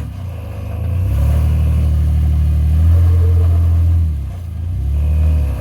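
Off-road Jeep's engine revving under load. It climbs about a second in and holds for about three seconds, eases off, then revs again briefly before dropping near the end.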